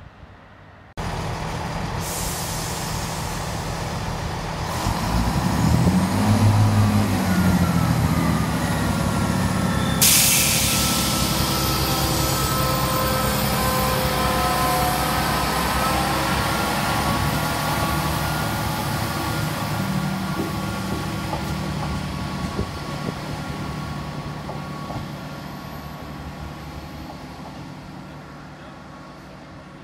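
Diesel multiple unit's underfloor engines running as the train pulls out: the engine note climbs and falls as it accelerates, a sudden hiss comes in about ten seconds in, with a transmission whine over it, and the sound slowly fades as the train draws away.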